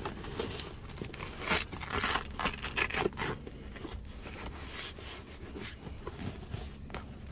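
Fabric bolster cover rubbing and rustling as hands tuck it into the seat, with a few short rasping tears of Velcro, the hook-and-loop fastening being pressed and pulled, from about one and a half to three and a half seconds in.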